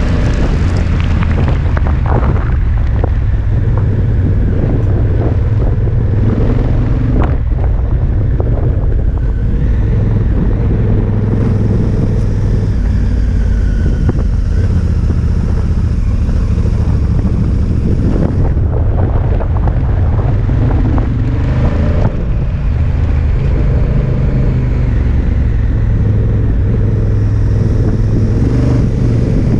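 Honda Africa Twin's parallel-twin engine running while riding on gravel, its note rising and falling several times with the throttle. Mixed with wind noise and scattered knocks from the gravel road surface.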